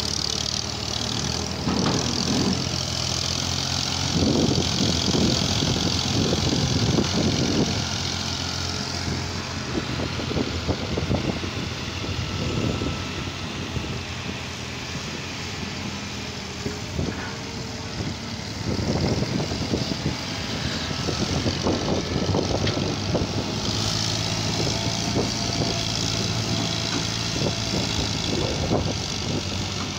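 Diesel farm tractor engine running steadily, with louder, rougher stretches a few seconds in and again about two-thirds of the way through.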